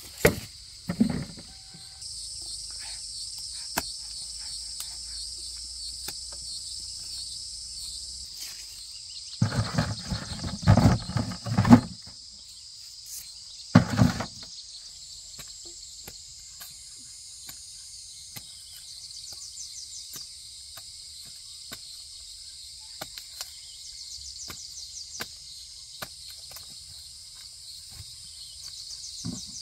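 Insects chirring steadily in high-pitched bands, with a few louder knocks and handling noises, a cluster of them about ten seconds in and another near fourteen seconds.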